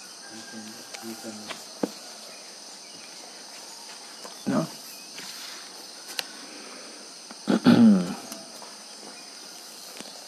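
Steady high chirring of insects, with a faint low murmur near the start. A short burst comes about four and a half seconds in, and a louder, brief voiced sound, the loudest thing here, comes near the eight-second mark.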